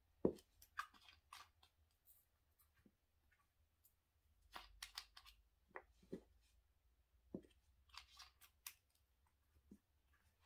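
Small plastic diamond painting storage jars being handled: screw caps twisted open and shut and jars set down, giving scattered light clicks and taps with short gaps between them.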